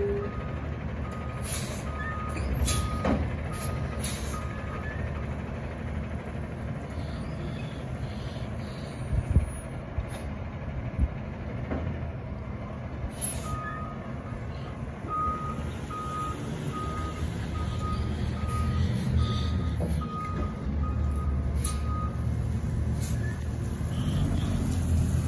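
Refuse truck's reversing alarm beeping about twice a second, in two stretches, the second longer, over its diesel engine running. A couple of sharp knocks come around the middle.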